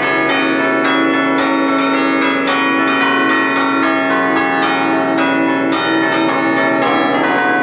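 A set of church bells played from a manual keyboard, struck in quick succession several times a second, so that their tones ring and overlap in a continuous melodic peal.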